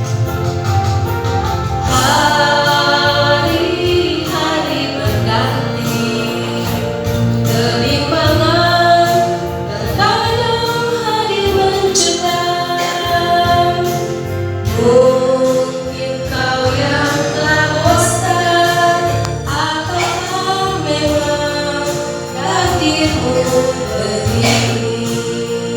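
A woman singing a Christian worship song over a backing track with a steady low beat, holding and bending long sung notes.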